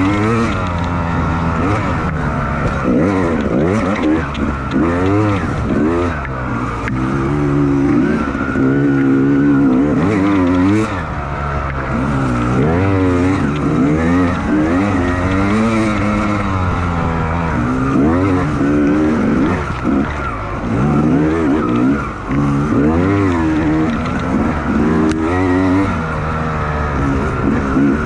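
Dirt bike engine revving up and dropping back over and over, the pitch rising and falling every second or two as the throttle is worked through the trail.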